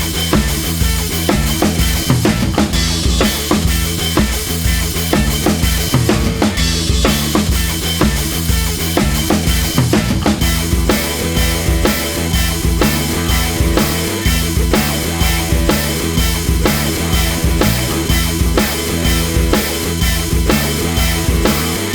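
Background music with a driving drum-kit beat and a steady bass line.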